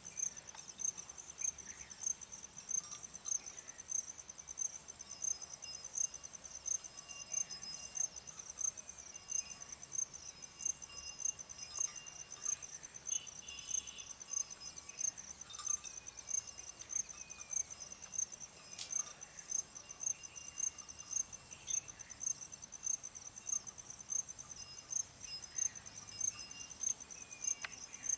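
Insect chirping steadily in a high-pitched rhythm of about two chirps a second, with faint short falling whistles now and then.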